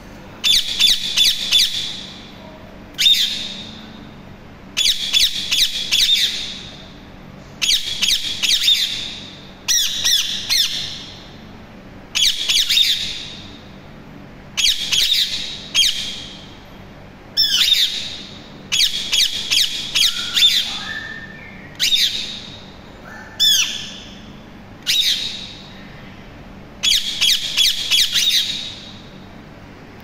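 Indian ringneck parakeets calling: loud, high-pitched squawks, each a quick run of notes up to about a second and a half long, repeated every two seconds or so, with a few softer, lower calls between them.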